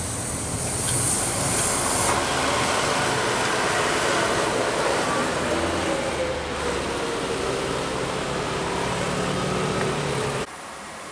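Heavy road traffic passing close by: diesel engines of a bus and a truck running with tyre noise, and a high hiss in the first two seconds. An engine note slides down in pitch as a vehicle goes past, and the sound drops off suddenly near the end.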